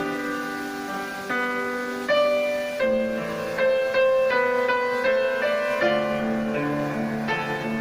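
Piano playing a slow, gentle melody over low chords, each note struck and left to ring.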